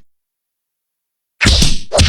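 Silence, then near the end a loud, sudden hit-like noise.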